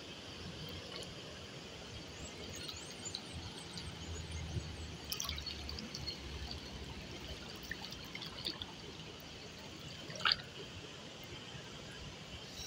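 River water trickling and dripping close by at the surface, small splashes and drips over a steady faint hiss, with one sharp click about ten seconds in.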